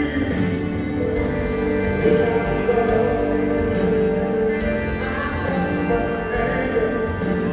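Live performance of a pop ballad by a band, with singing over held keyboard and string-like chords and a steady drum beat, heard through an audience recording.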